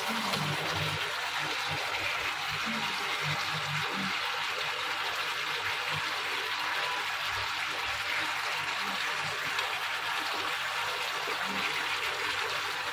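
Rohu fish curry with potatoes and green beans simmering and sizzling in a frying pan: a steady hiss and bubble with a few soft knocks.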